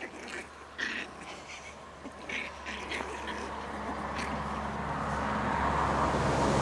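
Miniature pinscher puppies play-fighting, giving short, squeaky yips and squeals. A steady hum and rushing noise grow louder through the second half.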